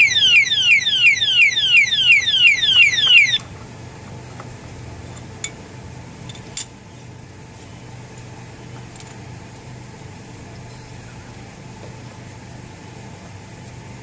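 Alarm padlock's built-in siren sounding continuously after the locked motorcycle is moved: a loud electronic whoop falling in pitch, repeating about three or four times a second. It cuts off suddenly about three seconds in, leaving a low steady hum and two faint clicks.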